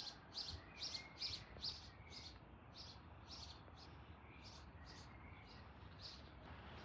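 A small bird chirping repeatedly, short high chirps coming two or three a second, loudest in the first couple of seconds and thinning out near the end, over a faint steady hiss.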